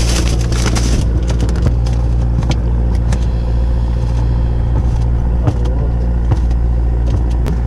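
A fishing boat's engine running steadily as a low hum, with a brief rush of hiss in the first second and scattered clicks and knocks of fishing tackle and gear on deck.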